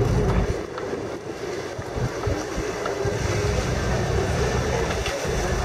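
Large motor boat's engine running as the boat manoeuvres slowly into its berth, with wind buffeting the microphone.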